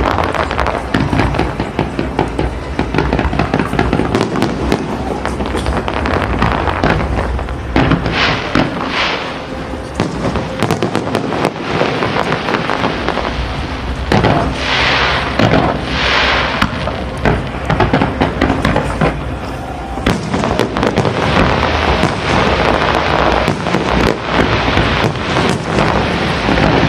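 Fireworks display going off continuously: a dense run of bangs and pops, with two spells of hissing crackle, about 8 seconds in and again about 15 seconds in.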